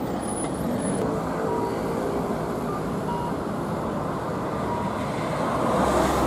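Heavy diesel dump trucks driving past on a street, a steady engine and tyre rumble that grows louder near the end as a truck comes close.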